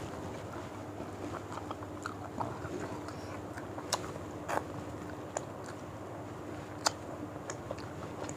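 People eating by hand: close mouth sounds of chewing, with a few short, sharp lip smacks, over a steady background hiss and hum.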